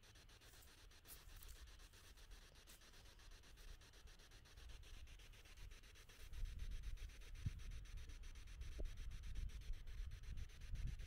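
Faint, uneven low rumbling on the microphone, growing louder about six seconds in, with a couple of small ticks.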